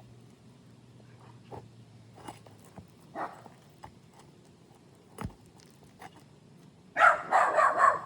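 Scattered light taps and knocks from work on asphalt shingles, then a loud, choppy burst of dog barking lasting about a second near the end.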